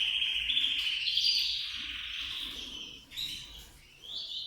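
Canaries singing: a continuous rapid trilling warble that fades over about three seconds, followed by a brief chirp and a new phrase starting near the end.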